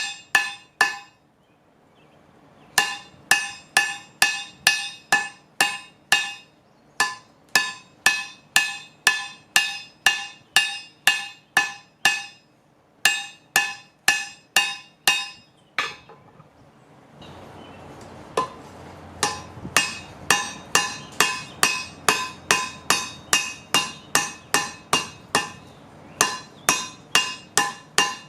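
Hammer blows ringing on a railroad-track anvil, about three strikes a second in runs with short pauses, each blow leaving the same clear metallic ring. From about 17 seconds in, a steady rushing noise joins underneath.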